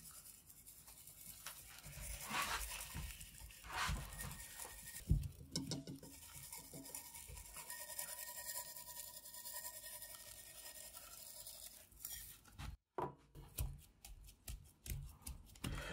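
Coarse spice rub of sea salt and cracked black pepper shaken from a shaker onto a beef chuck roll, the granules pattering onto the meat, with hands rubbing and pressing the rub in so it does not fall off.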